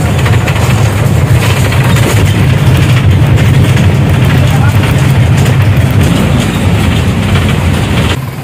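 A bus under way, heard from inside the passenger cabin: a loud, steady low rumble of engine and road noise.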